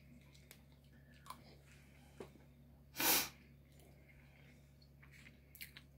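A person chewing quietly with faint mouth clicks, and one short, sharp burst of breath about three seconds in.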